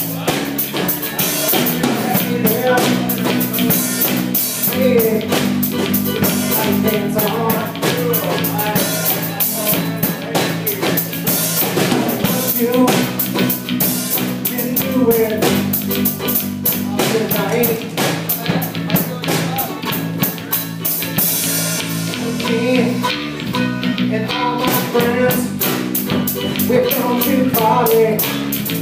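Live band music: an acoustic guitar strummed to a steady beat together with a small stringed instrument.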